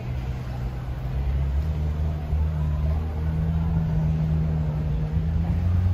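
A motor vehicle's engine running close by, its pitch stepping up twice as it revs, and growing a little louder toward the end.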